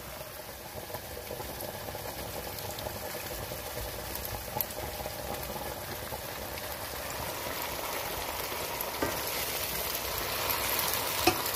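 A pot of fried onions bubbling and sizzling in oil and added liquid: a steady, even crackle that grows slightly louder, with a couple of light knocks from the stirring spatula.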